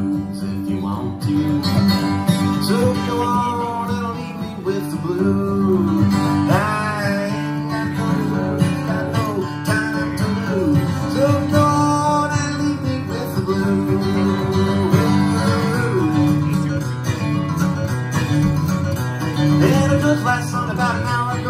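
Live steel-string acoustic guitar playing an instrumental break in a folk song: a steady low accompaniment with a melody of sliding, bending notes over it, and no sung lyrics.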